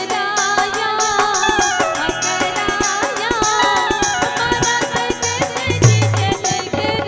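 A woman singing a Rajasthani devotional bhajan into a microphone, with a steady beat of percussion behind her voice.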